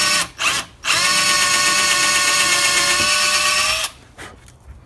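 Cordless drill boring pilot holes for tacks through a leather corner into a plywood cabinet. Two quick blips of the trigger come first, then a steady whine for about three seconds that rises briefly as the motor spins up and cuts off sharply.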